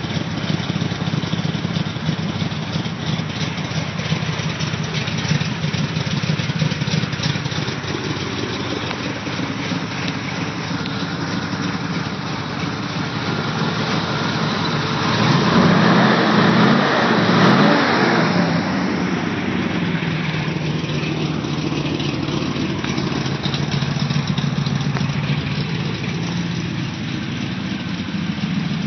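1969 Corvette Stingray's 427 big-block V8 idling through its side pipes. It grows louder for a few seconds about midway, then settles back to a steady idle.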